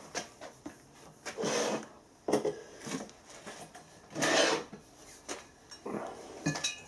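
Metal engine parts being handled on a steel workbench: a few scraping, sliding swells and sharp knocks, with a short metallic ring near the end as the spoked cast flywheel is picked up.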